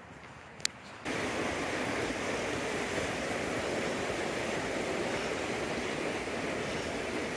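A single sharp click, then about a second in the steady rush of a fast-flowing creek begins abruptly and carries on evenly.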